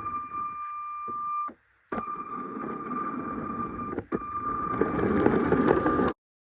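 A motorised Lego train running on plastic track: a steady high motor whine over a rattling rumble. The rumble grows louder near the end, and the sound breaks off briefly twice before stopping abruptly.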